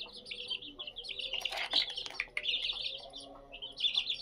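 Aseel chicks peeping, many high chirps overlapping without pause. A short scratchy rustle comes about a second and a half in.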